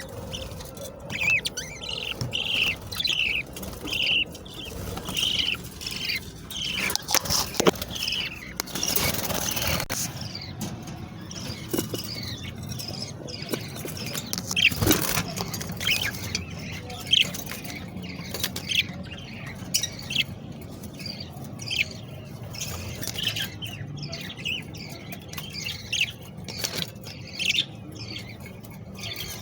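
Budgerigar chicks calling with short, repeated, high-pitched chirps and squeals, a few a second. There are a couple of louder rustling or handling noises in the middle.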